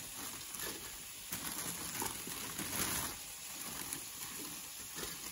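Olives frying in oil in a pan, a steady sizzle, with some louder handling noise between about one and three seconds in.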